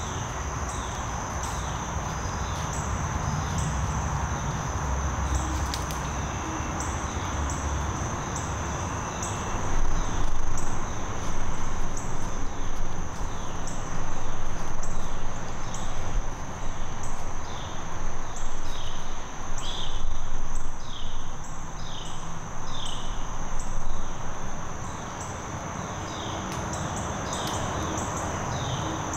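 Woodland insects trilling steadily at a high pitch, with a short falling chirp repeating about once a second. A louder low rumble comes and goes through the middle.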